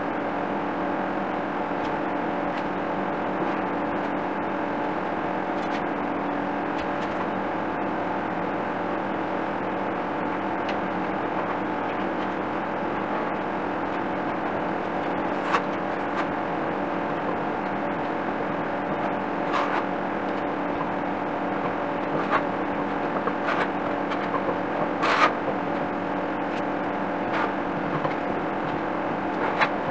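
A steady mechanical hum made of several unchanging tones, with a few light clicks and taps in the second half.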